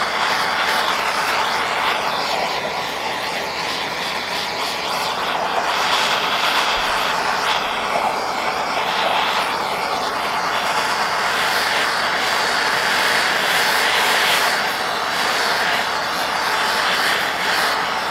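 Handheld gas torch burning steadily with a continuous rushing noise as its blue flame is played over an engine block, heating the metal to drive moisture and oil residue out before priming.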